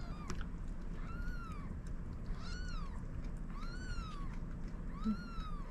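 Newborn kittens mewing: four high, thin, arching cries about a second and a half apart.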